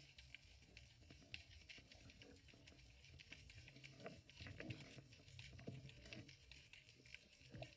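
Faint underwater ambience picked up through a camera's waterproof housing: scattered, irregular clicks and crackles over a low, dull hum.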